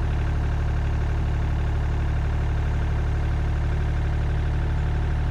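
Excavator engine running steadily, a constant low drone with no change in speed, while the machine is moved to shift the fork attachment's weight onto an undersized pin.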